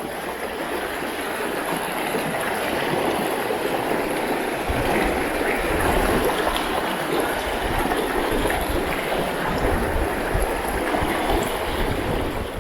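River water rushing over rocks in a steady noisy wash that grows louder over the first several seconds. A low rumble on the microphone joins it from about five seconds in.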